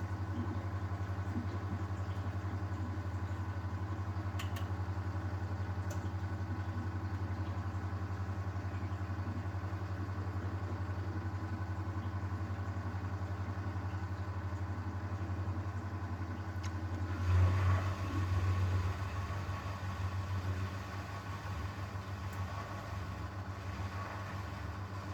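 1971 Constructa Garant 491 washing machine running a 100 °C boil wash: a steady low machine hum as the drum turns. About 17 seconds in there is a brief louder surge, and after it the running becomes rougher and less even.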